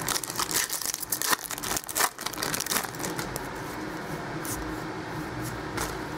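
Foil wrapper of a 2012 Topps Platinum Football pack being torn open and crinkled, a dense crackle for the first three seconds. After that comes quieter handling as the cards are pulled out and fanned.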